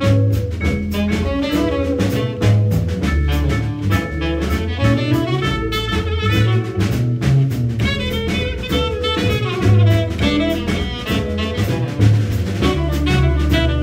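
Small jazz combo playing a tune: vibraphone, saxophone, plucked upright double bass and drum kit.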